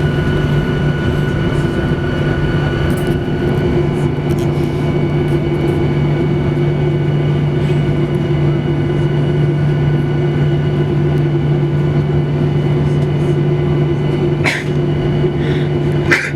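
Steady cabin noise inside a Boeing 737-800: a constant low drone with several steady whining tones on top. Two brief sharp clicks near the end.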